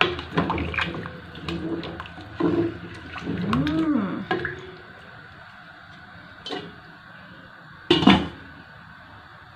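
A wooden spoon stirs rice, potatoes and meat in stock in a non-stick pot: liquid sloshing with knocks of the spoon against the pan. A short pitched sound rises and falls near the middle. About 8 seconds in, a glass pot lid clanks down onto the pot, the loudest sound.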